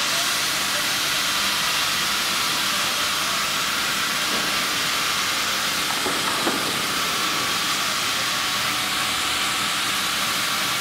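Steady hissing din of sawmill machinery running, with no distinct strokes or rhythm.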